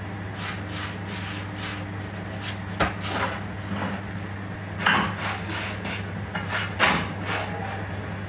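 Off-screen kitchen handling sounds: light taps, then three louder knocks about two seconds apart with smaller clatters between, over a steady low hum.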